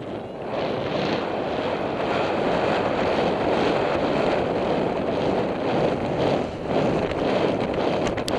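Wind rushing over a helmet camera's microphone as the horse gallops, building over the first second and then holding steady, with a few sharp clicks near the end.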